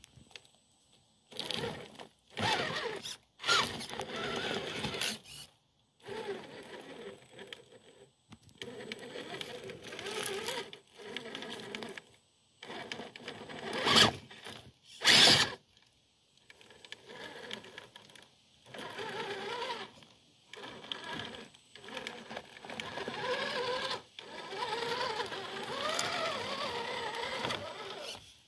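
Electric drivetrain of a Redcat Gen 8 RC crawler, a 16-turn 5-slot Team Brood Pathfinder brushed motor and its gears, whining in short stop-start throttle stretches as the truck crawls over rocks and gravel. The whine wavers in pitch with the throttle, and two short, louder bursts come around the middle.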